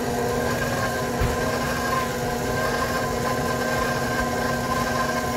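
Electric stand mixer running steadily, its motor giving a constant whine as the flat beater paddle works egg into thick choux pastry dough.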